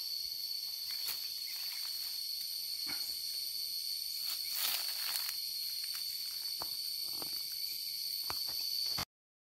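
A steady high-pitched insect chorus, with a few soft clicks and rustles over it, cutting off abruptly near the end.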